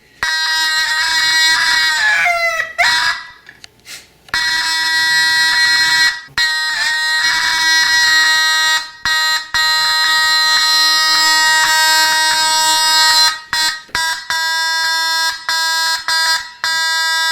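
Fire alarm horn sounding a loud, steady, buzzy tone in runs of a few seconds, cut off and started again several times. Its pitch bends and drops briefly between about two and three seconds in.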